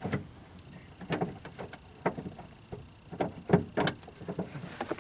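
Irregular clicks, knocks and short scrapes of a 1994 Geo Prizm's exterior door handle being pushed and worked out of the door, with the loudest knocks a little past the middle.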